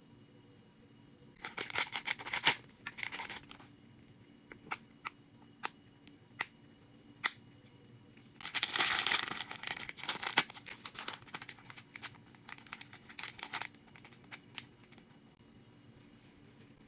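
Toy packaging being torn open and crinkled by hand, in two main bursts of rustling about a second and a half in and again near the middle, with scattered sharp clicks in between.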